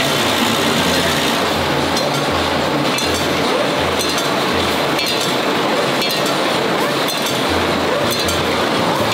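Automatic screw-making machine running, fed by a vibratory bowl feeder: a steady metallic clatter with small steel screws clinking along the feed, over a low beat about every 0.7 s that pauses briefly midway.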